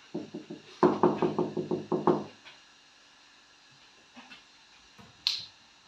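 A parrot knocking its beak rapidly on a door: a short run of knocks, then a faster run of about ten over a second and a half, each ringing with the door's hollow resonance. A single sharp click comes near the end.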